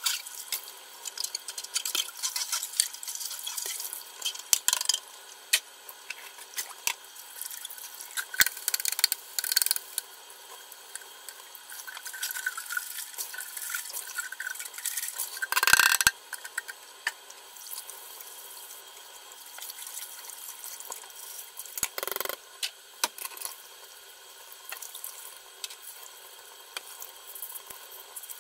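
Kitchen tap running into a stainless-steel sink while plastic Drinkwell cat water fountain parts are rinsed and scrubbed by hand under the stream. Frequent small clicks and knocks of plastic come through the water, with a louder clatter about 16 seconds in and another about 22 seconds in.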